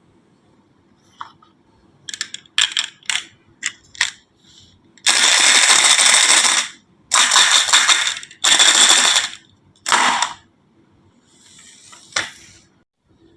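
Marbles clicking and clattering down a marble run, then several long spells of marbles rolling along the track, each about a second long, with a last faint roll and a click near the end.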